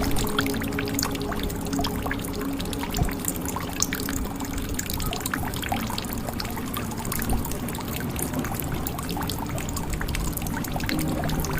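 Water pouring and dripping into a jug: a dense, irregular patter of small splashes and drips. A soft, sustained musical drone underneath fades out a few seconds in and returns near the end.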